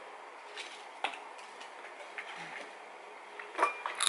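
Crunching as a fried pork rind is bitten into near the end, after a few faint taps, with the snack sounding very crunchy.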